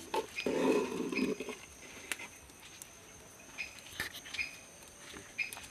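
Thick mashed-banana batter being stirred with a spoon in a clay pot: a wet mixing sound for the first second and a half, then quieter, with a few light clicks of the spoon against the pot.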